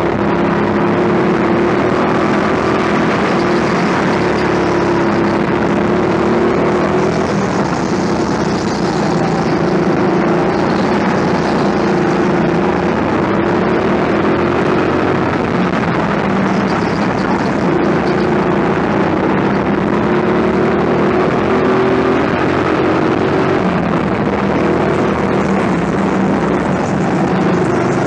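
Go-kart driven at racing pace on an indoor track. Its motor runs steadily and loudly from the driver's seat, the pitch rising and falling with speed through the corners.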